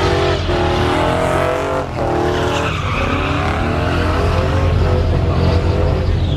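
Pickup truck doing donuts, its engine revving up and down over and over while its rear tires squeal and smoke on the pavement. The squeal grows stronger from about two seconds in.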